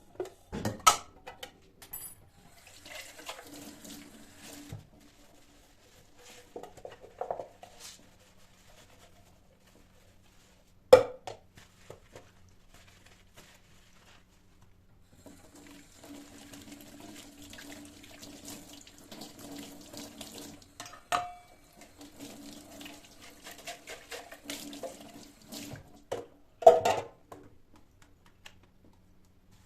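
Tap water running into a sink in two stretches, a short one early and a longer one of about ten seconds in the second half, with a few sharp knocks and clinks of things handled at the sink.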